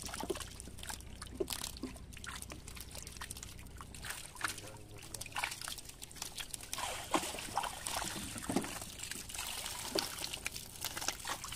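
Freshly caught wet mullet being handled and dropped into a mesh basket: irregular wet slaps and patters of fish on fish, with water trickling and dripping.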